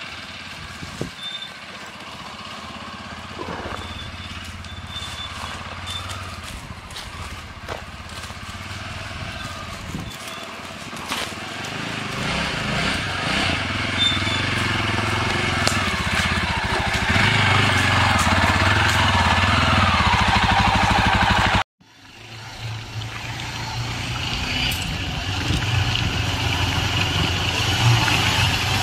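Motorcycle engine, the Yezdi Adventure's 334cc single-cylinder, running and getting steadily louder, with an abrupt cut about two-thirds of the way in, after which it builds up again.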